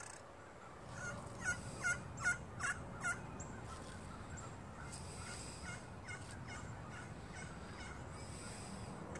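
Al Chapman pocket slate turkey call played with a striker, yelping like a hen turkey: a run of five loud yelps about two and a half a second, then a longer series of softer yelps.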